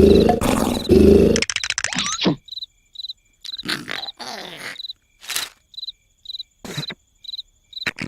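Crickets chirping in a steady rhythm, about two short high chirps a second. In the first second and a half a loud rough roar cuts across them, and a few short cartoon noises are scattered between the chirps.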